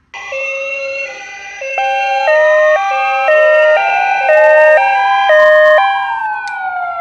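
Several toy ambulance sirens sounding at once: a two-tone hi-lo siren switching pitch about twice a second, layered with slow rising-and-falling wails. The sirens start abruptly and sound loud.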